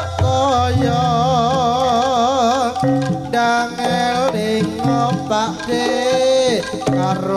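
Live Javanese jaranan accompaniment music played loud through a sound system: a melody line that holds one wavering note for a couple of seconds, then moves on, over steady drum strokes.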